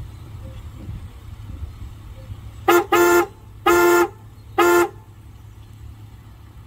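Pitch-tweaked pair of PIAA 85115 aftermarket car horns on a Dodge Challenger, sounded four times: a quick blip followed by three short honks.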